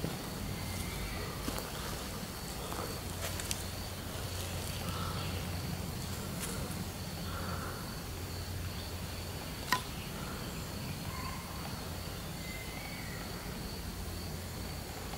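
Outdoor ambience in a meadow: a steady thin high-pitched tone over a low steady rumble, with a few faint short high notes. One sharp click comes about ten seconds in.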